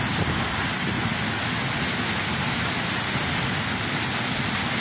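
Waterfall pouring down a rock face into a plunge pool: a steady, even rush of falling water.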